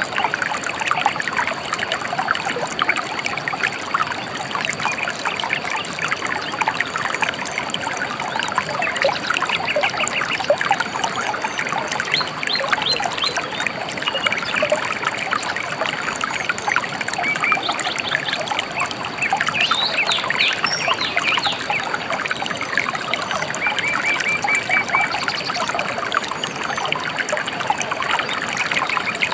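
Shallow river water trickling and babbling over stones, steady throughout, with small birds chirping in short rapid trills several times.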